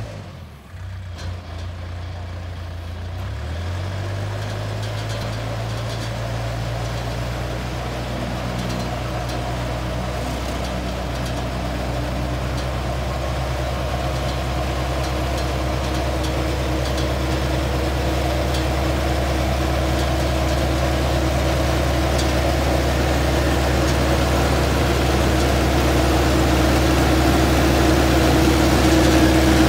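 Self-propelled peanut harvester's engine running steadily as the machine digs along the row, growing gradually louder as it draws near.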